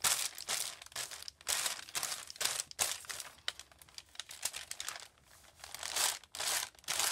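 Paper rustling and crinkling in a string of short scrubbing strokes as a distress ink pad is swiped across the crinkled pages of a composition notebook, with a brief lull about five seconds in.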